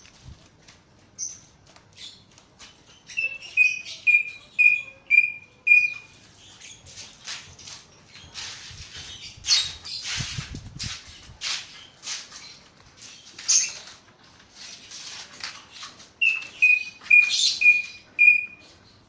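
A bird singing a run of about six short, clear whistled notes, slightly falling, about three seconds in; it repeats the same run near the end. Scratchy rustling and crackling bursts fill the middle.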